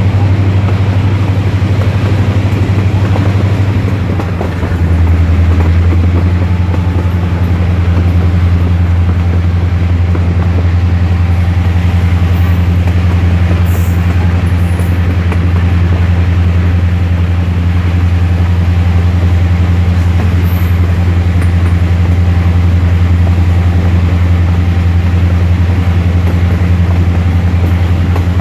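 EMD diesel-electric road-switcher locomotives (GP9 and GP30) running under way, their engines making a loud steady drone, with the rush and rumble of the train rolling on the rails. About four seconds in, the engine note briefly dips, then steps up and holds steady.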